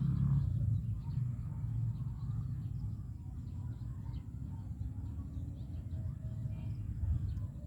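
Outdoor background: a steady low rumble with faint bird chirps scattered through it. No shot is fired.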